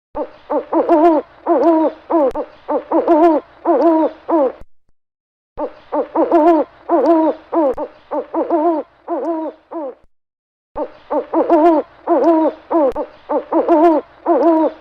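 An animal calling in quick runs of about eight short hoot-like notes each, three runs with a brief silence between them.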